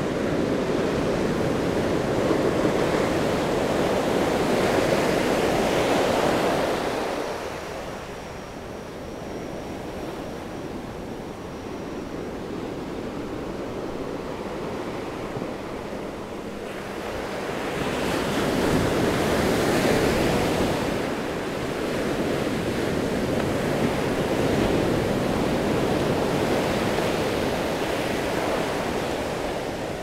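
Ocean surf breaking on a sandy beach and washing up the shore. A loud rush of surf through the first several seconds dies down, then builds again about eighteen seconds in and stays steady.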